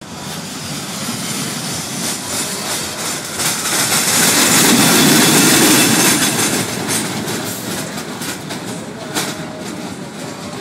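Roller coaster train running along its steel track, a steady clattering rumble of wheels on rail that swells to its loudest about halfway through and then eases off, with a sharp click about nine seconds in.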